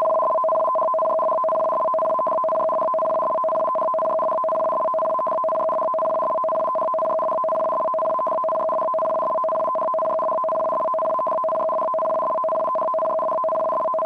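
Japanese Emergency Warning Broadcast System (緊急警報放送) start signal: a loud, steady, harsh buzzing warble of data tones flicking rapidly between two pitches. It is the code that switches receivers on for a disaster warning broadcast.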